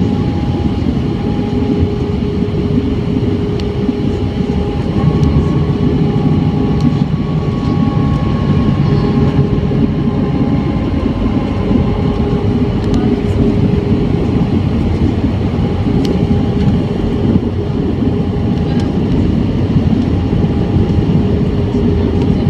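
Airbus A320 cabin noise on descent: a steady roar of the jet engines and airflow, with a faint steady hum through it. For several seconds in the middle, a lower hum and a slightly falling higher tone join in while the wing flaps extend.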